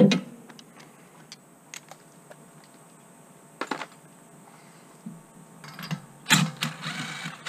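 Clicks and metallic clinks of a spark-plug socket and extension being handled and fitted. There is a sharp knock at the start and a louder clattering burst lasting about a second near the end.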